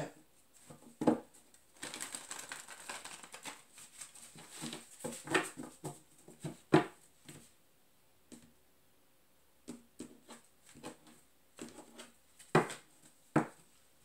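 A deck of tarot cards being shuffled and handled, the cards rustling and clicking against each other, with a few sharp taps as cards or the deck are knocked down on the table, the loudest two near the end.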